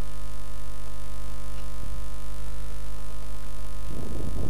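Steady electrical hum with a stack of even overtones, the mains hum of the recording setup, running constantly under the narration track.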